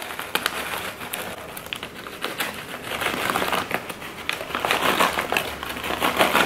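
A Cheetos Cheddar Jalapeño snack bag crinkling as it is shaken and the puffs pour out onto a pizza, a run of small quick rustles that thickens about halfway through.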